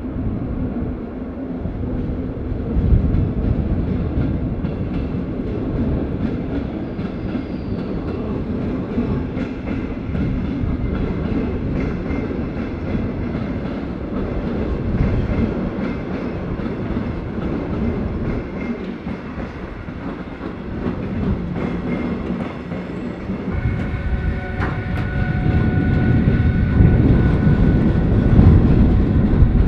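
A train moving on the station tracks, making a steady rumble. About three-quarters of the way through, steady whining tones come in and the sound grows louder.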